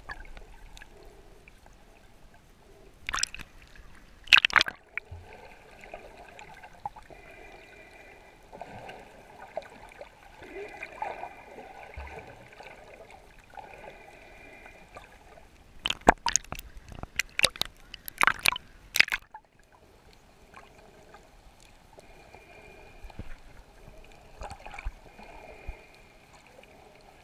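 Underwater sound through a camera held below the surface: a low steady wash of water with faint gurgling, broken by sharp splashing bursts a few seconds in and a quick run of them past the middle.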